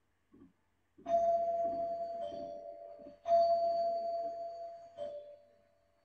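Two-tone doorbell chime sounding ding-dong twice: each time a higher note struck and ringing on, then a lower note, fading away after the second.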